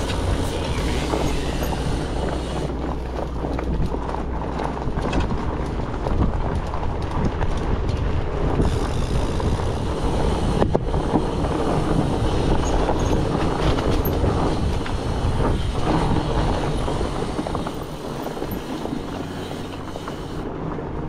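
Mountain bike ridden over a rough trail: a continuous rattle and tyre noise, with many small knocks and one sharp knock about halfway through.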